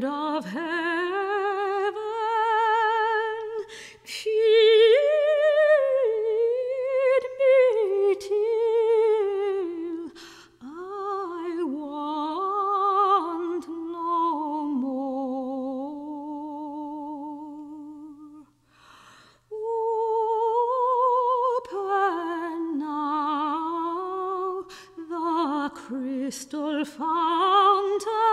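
Soprano singing a slow art-song line with wide vibrato and long held notes. She breaks off briefly for a breath about two-thirds of the way through.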